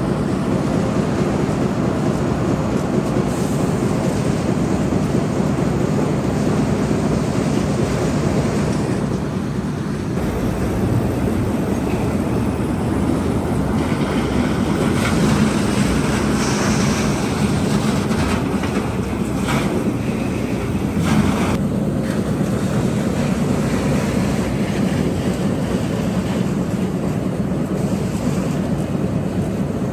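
Disc wood chipper running: a loud, steady machine drone, with a few short sharp cracks around the middle.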